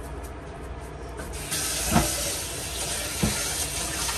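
Water pouring into the blender jar over the roasted chiles: a steady hiss that starts about a second and a half in, with a couple of short knocks.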